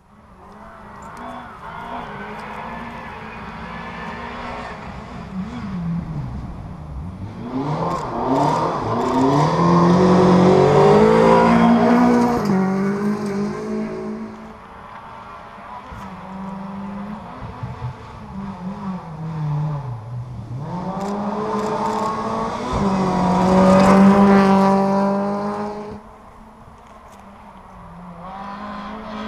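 Rally car engines running hard on a special stage, the pitch rising and falling through gear changes and lifts off the throttle. The sound swells to its loudest about ten seconds in and again about twenty-four seconds in, then drops away sharply.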